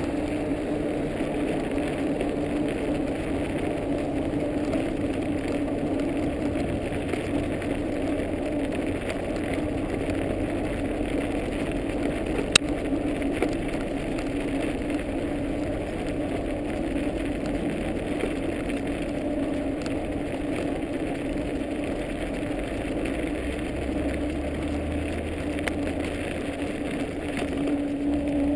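Dog scooter rolling steadily along a snow-covered paved trail behind its dog team: a continuous tyre rumble with a steady hum. There is one sharp click about halfway through.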